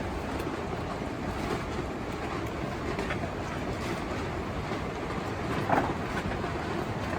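Strong wind buffeting the microphone: a steady low rumbling noise, with a brief louder gust or knock near the end.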